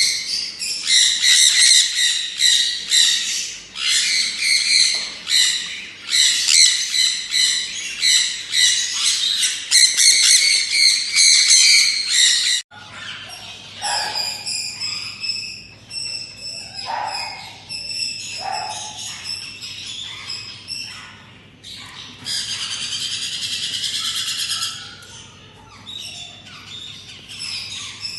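Small parrots chirping and squawking in rapid, overlapping high-pitched calls. About halfway through, the sound changes abruptly to sparser calls over a faint low hum, with a dense burst of chattering a few seconds before the end.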